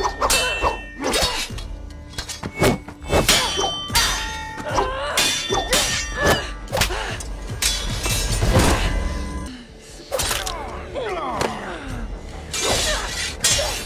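Steel swords clashing again and again in a fast sword fight: sharp metallic clangs that ring briefly, mixed with whacks, over a music score. The action eases off briefly about ten seconds in before the clashes resume.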